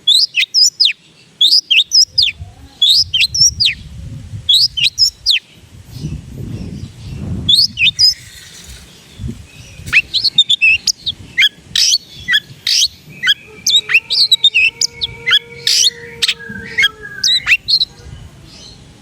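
Long-tailed shrike (cendet) singing: short, sharp, high chirps in quick groups of two or three, turning after about 10 s into a faster, varied run of notes with some longer whistles woven in. A low rumble sits under the first half.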